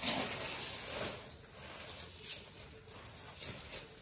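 Thin plastic carrier bag rustling and crinkling as a hand and a plastic cup dig into it to scoop out dry basmati rice, with a few sharper crinkles.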